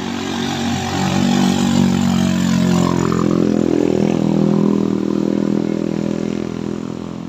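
A vehicle engine running hard under load as it climbs a steep hill. It grows louder about a second in, holds steady, then eases off slightly near the end.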